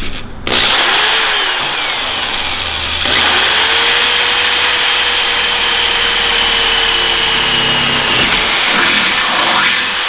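Power tool whining as it runs: it spins up near the start, holds a steady pitch for several seconds and then slows near the end.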